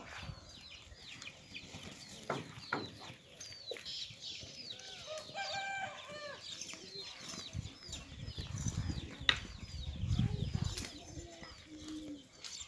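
Many small birds chirping in a steady stream of short, high, falling chirps, with one louder pitched call about halfway. A few sharp knocks and a low rumble come in the second half.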